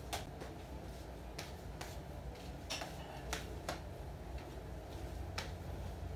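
Scattered light clicks and taps at uneven intervals, about eight of them, over a low steady hum that grows a little louder near the end.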